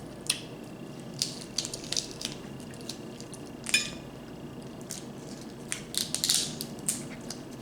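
Seafood-boil crab leg shells being cracked and crunched while eating: scattered sharp cracks and crunches, the loudest a little under four seconds in, with a longer stretch of crunching around six seconds.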